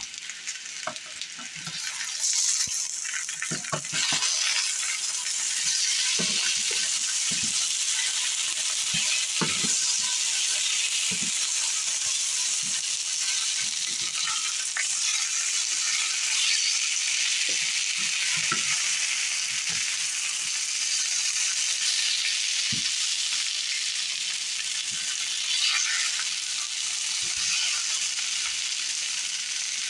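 Sliced potatoes sizzling in hot oil in a skillet while a slotted spatula turns them, scraping and knocking against the pan. The sizzling grows louder over the first few seconds, then holds steady.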